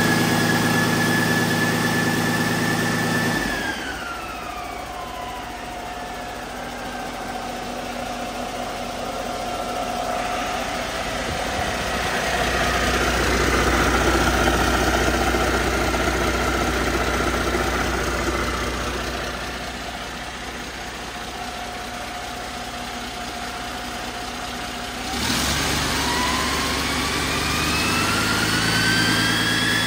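2018 Detroit DD15 inline-six diesel engine running. It is held at raised revs with a high whine, drops back to idle about three and a half seconds in, idles steadily for some twenty seconds, then revs up again near the end, the whine climbing in pitch.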